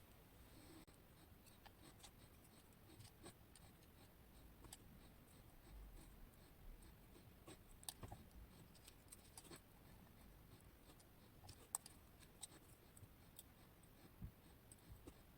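Faint scattered clicks, ticks and light scraping of small metal lock parts being handled as a West 955 pin-tumbler lock is disassembled, with a few sharper clicks among them.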